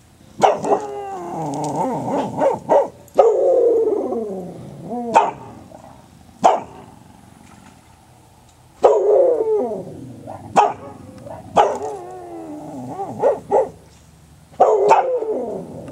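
A dog howling: about five long wails, each sliding downward in pitch, with short sharp barks between them and a lull of a few seconds in the middle.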